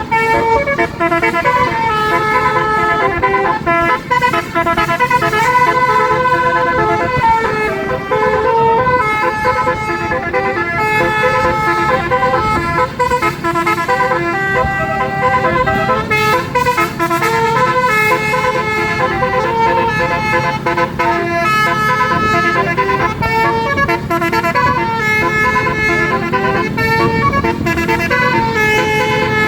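Bus's Basuri 'telolet' musical air horn playing a long melody, its tones switching pitch every fraction of a second without a break, over the low rumble of the bus's engine.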